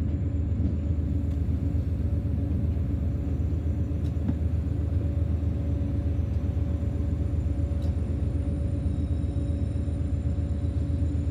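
BB 60000 diesel locomotive's engine running steadily with a low rumble, heard from the cab as the locomotive rolls slowly along the track.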